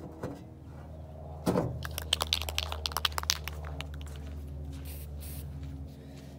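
Aerosol spray-paint can being shaken: a knock about a second and a half in, then its mixing ball rattles in quick, irregular clicks for about two seconds. A steady low hum runs underneath.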